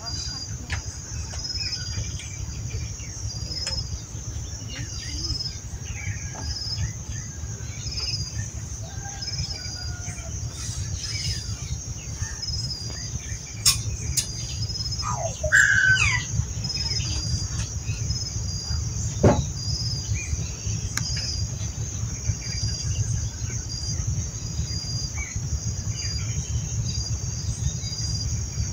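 Steady high-pitched insect chorus with an evenly pulsing chirp running through it, over a low rumble. A few bird chirps and a couple of sharp knocks stand out near the middle.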